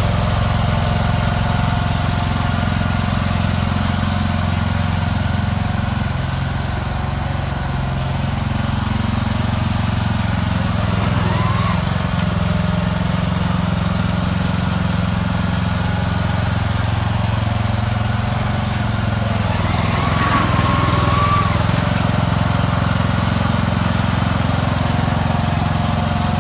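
Riding lawn mower's engine running steadily as the mower drives along, pushing snow with a plow blade.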